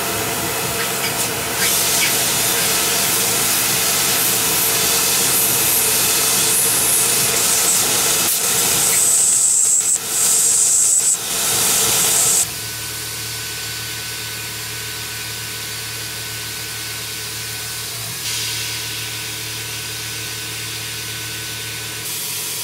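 Tormach PCNC mill cutting aluminum with a small end mill under a loud, steady hiss from its coolant nozzle. About twelve seconds in the hiss stops suddenly, and the mill carries on more quietly with a steady high tone over a low hum.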